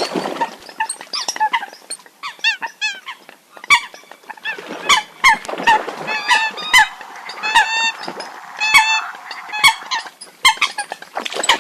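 Water hens calling: several birds overlapping in rapid series of short nasal honking calls, with many sharp clicking notes between them. It is a water-hen call recording of the kind used as a hunting lure.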